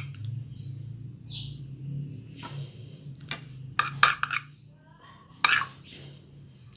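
A metal spoon and fork clinking against a small white ceramic bowl while stirring beaten egg yolk. There are several sharp clinks, with a quick cluster about four seconds in and one more about a second and a half later, over a steady low hum.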